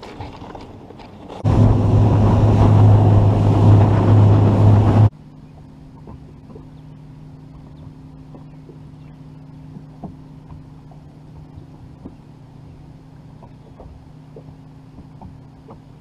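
A bass boat's motor runs loud for about three and a half seconds and cuts off suddenly. A steady low hum with faint scattered ticks follows.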